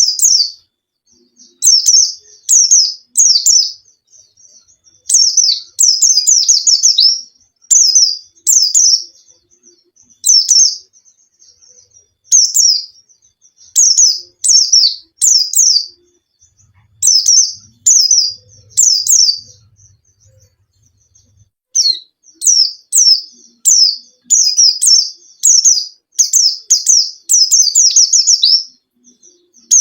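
Pleci (Zosterops white-eye) singing: quick bursts of rapid, high, down-slurred notes in short phrases separated by brief pauses. It is a lure song, played to prompt a quiet white-eye to start singing.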